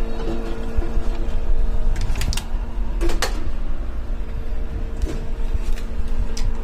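A foil-sheet press machine's electric motor hums at a steady pitch, with a few sharp clacks from the press as it is worked.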